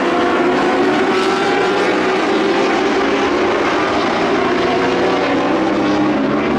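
Several lightning sprint car engines running together at racing speed on a dirt oval, a steady, loud blend of high-revving engine notes at slightly different pitches.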